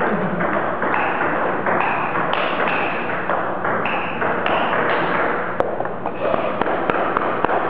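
Table tennis ball clicking sharply off paddles and table during a rally, several hits in the second half, over a loud steady rushing noise.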